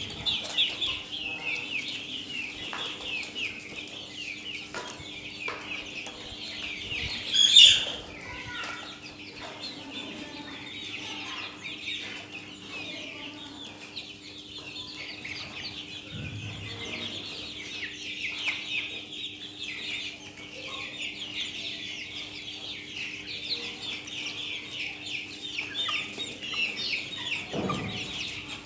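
A flock of young Australorp chickens calling continuously, many overlapping high peeps and clucks. One sharp, loud sound stands out about seven and a half seconds in.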